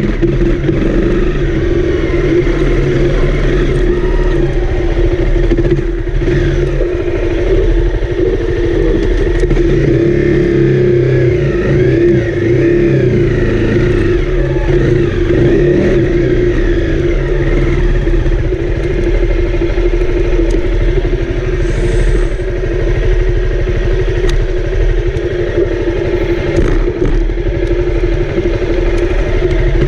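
Honda CRF250L's single-cylinder four-stroke engine running at moderate, fairly steady revs while the bike is ridden, its pitch rising and falling a little with the throttle.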